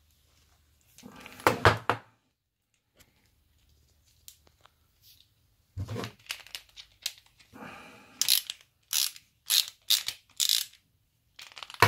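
Workbench tool-handling noise while a screwdriver loosens the screw of a homemade rubber-disc drill polisher: a cluster of clicks and knocks about a second in, then a run of short rasping strokes, about two a second, near the end.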